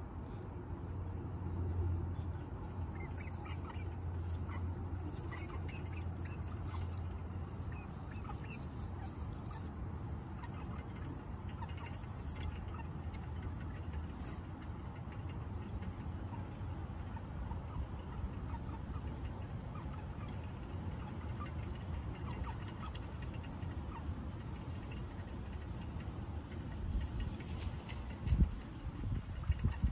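Hens clucking softly now and then, over a low steady hum in the first half. A few loud knocks near the end.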